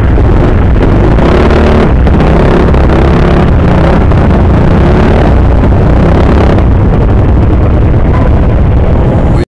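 Yamaha Mio Sporty scooter's stock single-cylinder engine, fitted with a 28 mm Keihin carburettor, running loudly close to the microphone, its pitch shifting a little with the throttle. The sound cuts off abruptly near the end.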